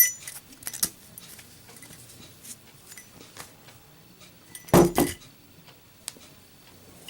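Armor-case Zippo lighter being drop-tested: metal clicks from the lid, then a loud, ringing double clack a little under five seconds in as the hinged lid drops shut under its own weight.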